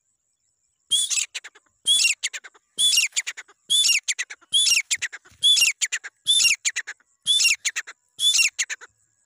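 Grey francolin calling: a phrase repeated nine times about a second apart, each a sharp high note followed by a quick stutter of shorter notes.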